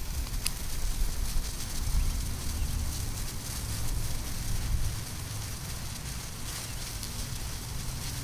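Small open flames burning on charred debris, with a steady hiss and a few faint crackles. Under them runs an irregular low rumble of wind on the microphone.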